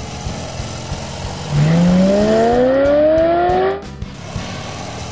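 Engine-revving 'vroom' sound effect that rises steadily in pitch for about two seconds, then cuts off, over background music.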